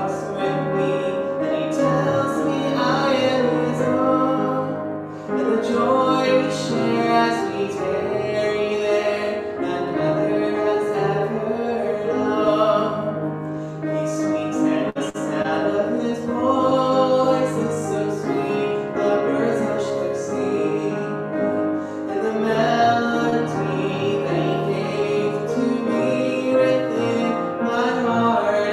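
Piano playing with a solo voice singing over it, a slow melody sung with vibrato.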